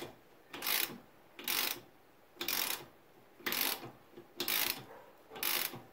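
Hand ratchet clicking in short bursts about once a second, six times, as it turns the nut of a homemade bolt-and-socket press. The press is drawing a Honda Accord front control arm compliance bushing in by hand, and it is sliding in freely without binding.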